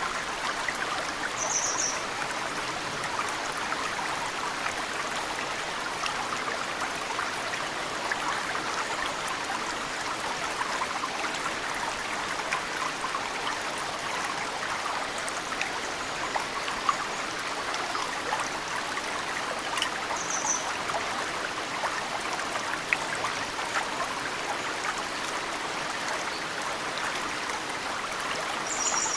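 Mountain stream running steadily, with drops of snowmelt falling into it as occasional small ticks. A bird gives a brief high chirp about two seconds in and again about twenty seconds in.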